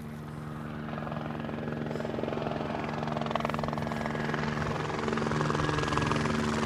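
Helicopter sound: a fast, even rotor beat over a low engine drone, growing steadily louder as if the helicopter is approaching.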